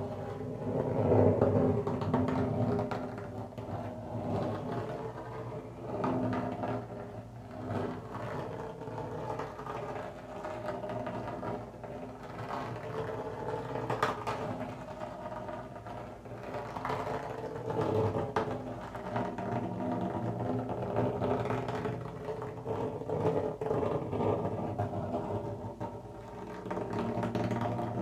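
A feather rubbed steadily on the skin of a frame drum, making a continuous whirring drone that swells and fades in waves.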